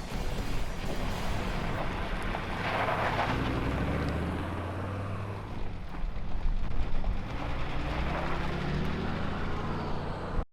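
Four-wheel-drive vehicle engine running under way, with tyre and road noise; the engine note rises and falls, with a louder swell about three seconds in. The sound cuts off suddenly at the end.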